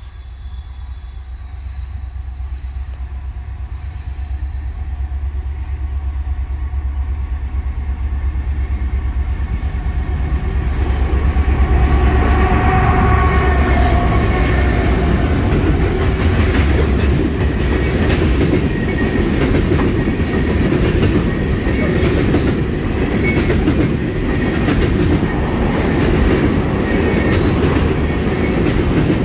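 Diesel freight locomotives approaching and passing, their deep engine rumble building over about ten seconds. Then a long line of oil tank cars rolls by with steady wheel rumble and clicking over the rail joints.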